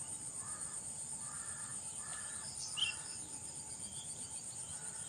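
White-breasted waterhen giving a run of harsh, croaking calls repeated about every half to one second, fading after the first few seconds. A steady high insect drone runs underneath, and another bird gives a sharp chirp about three seconds in.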